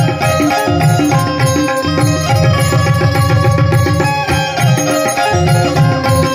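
Folk music played on tabla and bulbul tarang: the tabla keeps a steady rhythm of drum strokes while the bulbul tarang plays a melody of held, changing notes.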